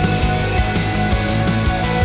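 Background music with a steady drum beat and bass line.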